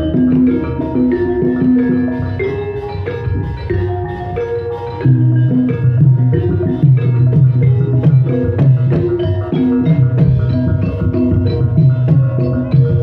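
Javanese gamelan playing jaranan dance music: saron-type metallophones struck with wooden mallets in quick patterns over a steady beat of drums. The playing softens a couple of seconds in and comes back louder about five seconds in.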